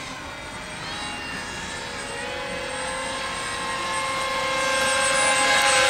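Radio-controlled model airplane flying by, its motor holding a steady high-pitched note that grows louder as the plane approaches.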